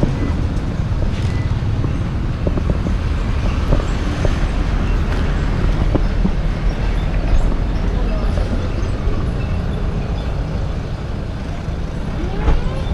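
Motorbike running along a road, with a steady low rumble of wind on the microphone.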